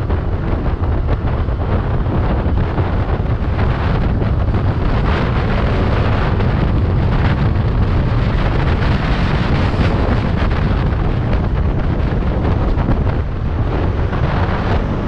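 Steady wind rush buffeting the microphone of a scooter running at about 60 to 80 km/h, with the scooter's running noise underneath.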